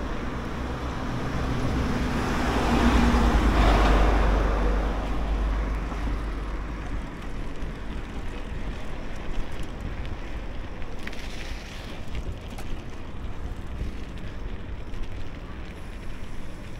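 Wind and road noise picked up by a DJI Action 3 action camera's microphone while riding a bicycle: a steady rush over a low rumble. A louder rush swells and fades from about two to five seconds in.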